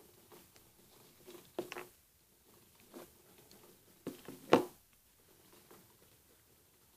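Handling noise as a battery, wires and small motor parts are picked up and set down on a glass tabletop: scattered light clicks and taps, a short cluster of knocks in the first two seconds, and the loudest knock about four and a half seconds in. No motor is running.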